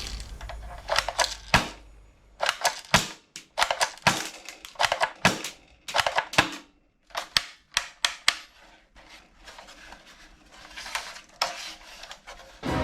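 Sharp plastic clicks and snaps from toy guns being cocked and fired, in quick clusters about once a second, getting quieter in the last few seconds.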